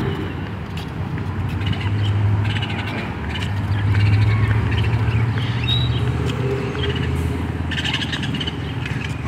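Birds chirping now and then over a steady low rumble that swells and then eases off.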